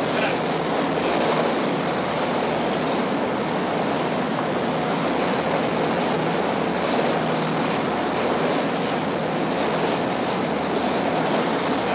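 Steady rushing noise of wind and water, even throughout with no distinct events.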